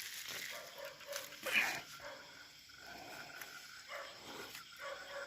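A dog barking several times, in short calls with pauses between them.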